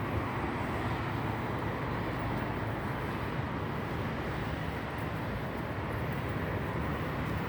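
Steady road traffic noise: vehicles running with a constant hum and tyre noise, with no distinct horn or passing event standing out.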